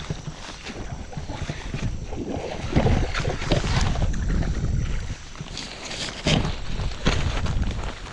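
Wind buffeting the microphone in gusts, a heavy uneven rumble, with several short knocks and rustles of handling.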